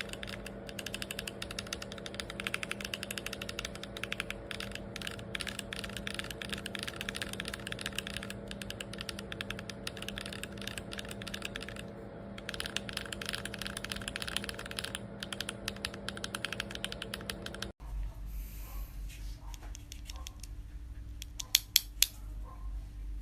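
Fast typing on a mechanical keyboard with Duhuk Lumia Matcha V4 linear switches: a dense run of key clacks. After a sudden break about three-quarters of the way in, scattered keystrokes over a low hum, with three loud clacks near the end.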